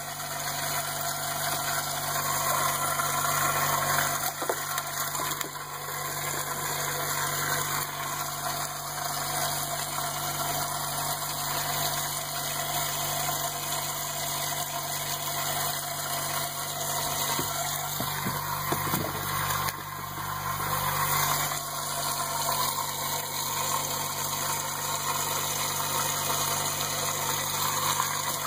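Bait-tank agitator pump running steadily: a constant motor hum under an even hiss of water being churned in the tank.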